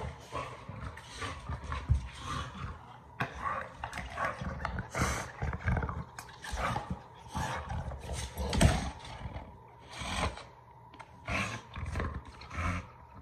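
Pit bull-type dog growling in short, irregular bursts close to the microphone, the two loudest about two seconds in and again past the middle.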